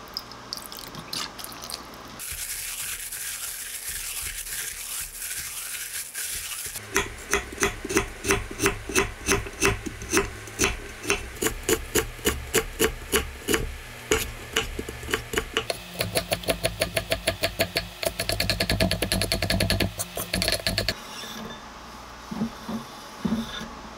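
Kitchen knife chopping fresh ginger on a wooden cutting board: evenly spaced strokes at about three a second, quickening to rapid mincing near the end. Before the chopping, a few seconds of steady dry rasping scrape, and a few light knocks as the minced ginger is pushed off the board.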